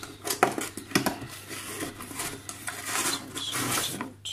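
Cardboard packaging being handled: rustling and scraping of cardboard, with sharp knocks about half a second and a second in.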